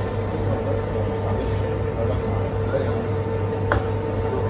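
Electric meat grinder's motor running with a steady hum, and a single sharp click about three and a half seconds in.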